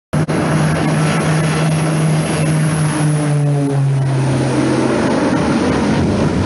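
Twin-engine propeller aircraft flying low, its engines droning steadily; the drone's pitch drops about four seconds in as the plane banks away.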